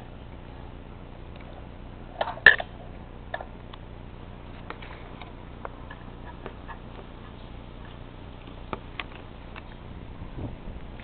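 Electric pedestal fan motor humming steadily under scattered light ticks and clicks, with a louder cluster of clicks about two and a half seconds in.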